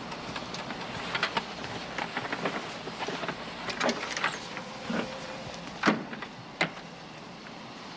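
A run of sharp clicks and knocks over the steady drone of an airliner cabin, with the two loudest knocks close together near the end.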